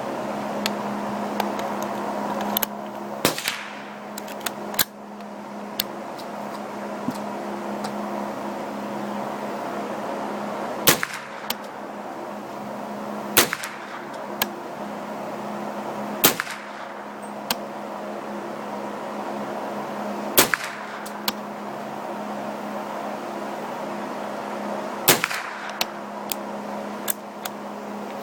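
AR-15 rifle firing slow single shots: about six loud shots a few seconds apart, with fainter shots between them. A steady hum runs underneath.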